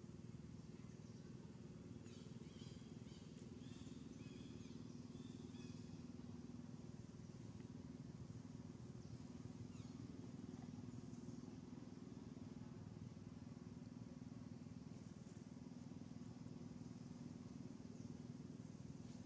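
Quiet outdoor ambience: a steady low hum, with a few faint high chirps between about two and six seconds in.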